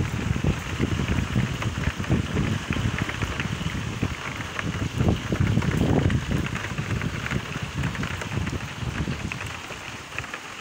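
Rain falling in gusty wind, with wind rumbling on the microphone; the gusts ease off near the end.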